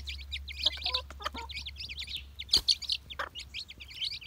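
A brood of chicken chicks peeping in a rapid, continuous chorus of high chirps while they peck mealworms from a hand, with a few lower clucks from the mother hen and one sharp tap a little past halfway.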